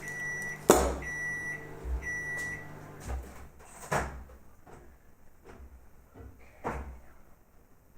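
Microwave oven humming at the end of its cycle and giving three short high beeps about a second apart to signal that it is done, with a sharp click just under a second in. The hum stops about three seconds in, and a few knocks and clunks follow.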